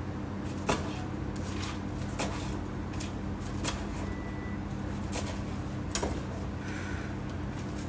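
Scattered light knocks and clicks of dishes and utensils being handled while sushi is made, about six in all, over a steady low electrical hum.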